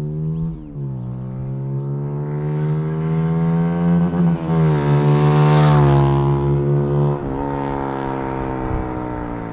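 Zontes U1 125 motorcycle with a Turbokit GP H3 aftermarket exhaust accelerating hard up the road toward and past the camera. Its engine note climbs, with an upshift about a second in and another a couple of seconds from the end. It is loudest as the bike passes, about halfway through, after which the pitch drops.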